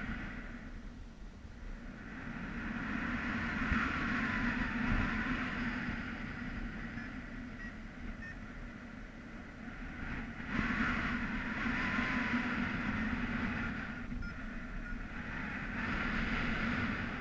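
Airflow of paraglider flight rushing over the microphone as wind noise, swelling and easing several times.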